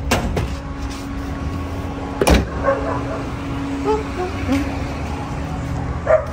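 A click as the hood release of a 1994 Mazda Miata is pulled, then a single loud thunk about two seconds in, over a steady low hum.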